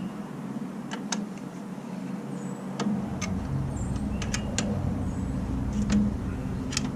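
Scattered sharp clicks and clinks of hand tools against metal suspension parts, about eight in all, over a steady low rumble that gets heavier about three seconds in.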